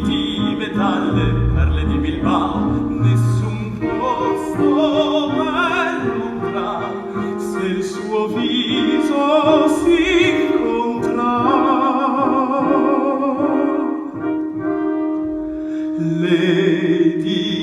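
Live musical-theatre song: a singer's sustained lines with wide vibrato over orchestral accompaniment.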